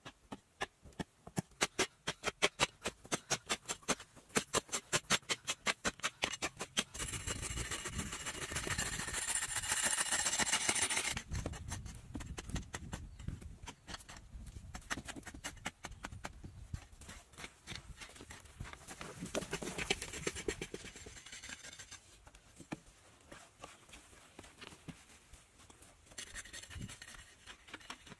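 Hand tools digging earth: a hoe strikes the dirt in a quick run of chopping blows, several a second, for the first several seconds. Then comes a few seconds of loud scraping noise, followed by quieter scraping and occasional knocks as soil is dug and shifted.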